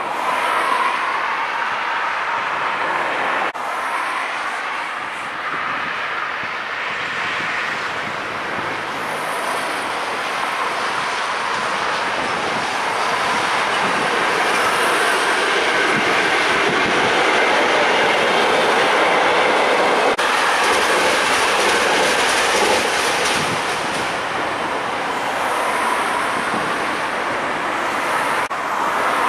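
Electric multiple unit passing on the station tracks, its wheels clattering over rail joints and points with some wheel squeal. The sound swells to its loudest about midway and eases off near the end.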